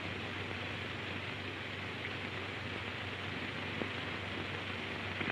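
Steady hiss with a low hum from an old, worn sound-film soundtrack during a pause in the dialogue.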